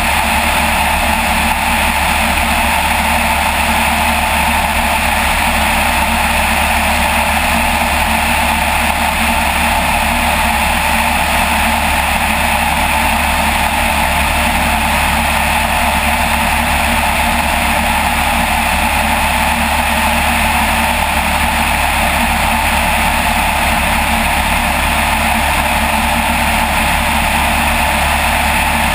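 Light aircraft's piston engine and propeller running steadily in flight, a loud constant drone with no change in pitch.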